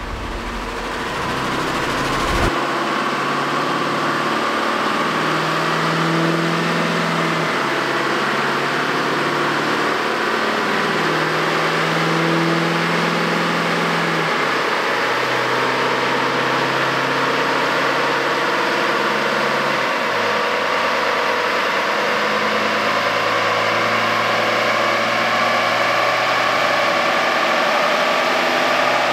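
GMC L5P Duramax 6.6-litre V8 turbodiesel with compound turbochargers running on a chassis dyno, the rear wheels spinning on the rollers. The engine note holds steady and then steps to a new pitch every few seconds, with a faint turbo whine over it.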